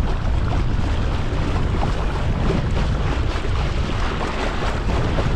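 Strong wind buffeting the microphone over the continuous splash and slap of choppy water against a moving kayak's bow.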